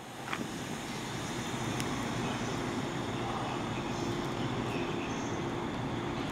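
Train running past the trackside: a steady rumble that grows slightly louder, with a low steady hum coming in about four seconds in.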